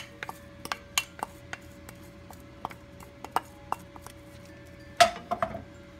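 A wooden spatula scraping and knocking against a bowl as fried mushrooms are emptied into a pan: a string of irregular sharp taps and clicks, with a louder clatter about five seconds in.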